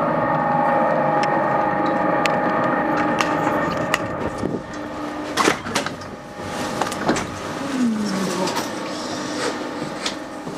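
Steady electric hum of the waiting Mont Blanc Express train beside the platform, then a few sharp knocks and footfalls about halfway through as passengers climb the steps into the carriage, where the hum is quieter.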